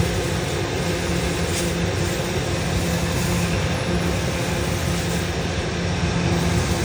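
Kaffes CVAT/4-6000/450 N ventilation fan running steadily on test: an even rush of moving air with a low steady hum.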